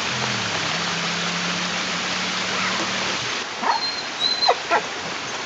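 A steady rushing noise with a low hum cuts off suddenly about three seconds in. Then a hound mix dog whines in a run of short, high cries, his whining to get the group back together.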